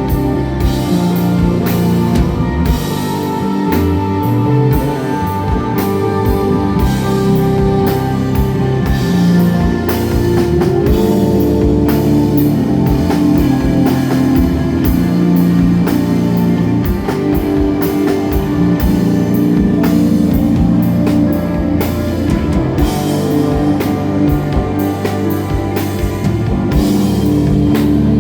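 Live instrumental rock band playing: sustained electric guitar notes over bass and a steady drum kit beat.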